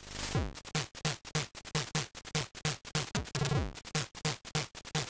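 ZX Spectrum 128 chiptune from its AY sound chip: a fast run of noise-channel drum hits with low kick-drum tones that drop in pitch.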